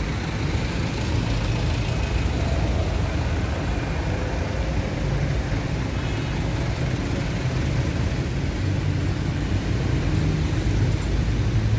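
Steady low rumble of a running motor vehicle engine, even throughout with no revving or sudden events.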